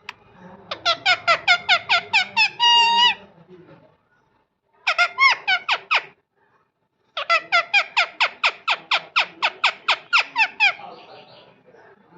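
Parrot calling in quick runs of short, sharp repeated notes, about five a second, in three bouts; the first bout ends in a longer held note.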